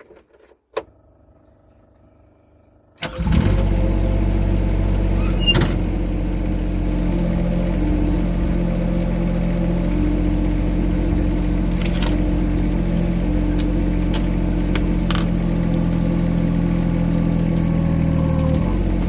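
Rippa R15 mini excavator's engine starting about three seconds in, after a single click, then running steadily at an even speed, with a few sharp knocks over it.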